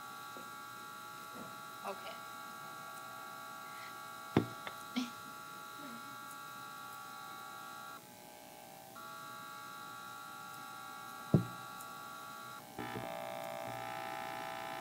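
Steady electrical buzz of several thin tones, heard through the sound system. It drops out for about a second around eight seconds in and changes to a different set of tones near the end. A few short knocks stand out, the loudest about four and eleven seconds in.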